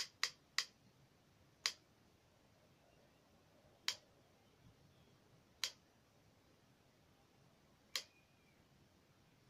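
Sharp little clicks from a hot glue gun being worked against a wooden coffee stirrer: three in quick succession in the first second, then single clicks about two seconds apart.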